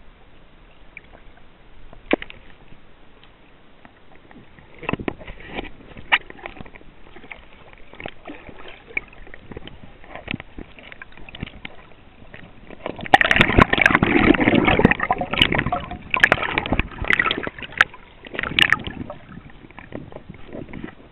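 Muffled water sloshing and gurgling around a camera held underwater in a river, with scattered knocks and clicks. The sound grows much louder and denser for about six seconds past the middle, then falls back.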